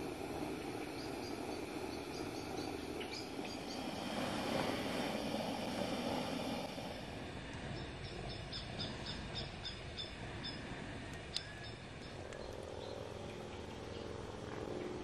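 Evening forest ambience: a steady rushing background, with a bird singing runs of short, high repeated notes near the start and again in the second half. A single sharp click sounds about three-quarters of the way through.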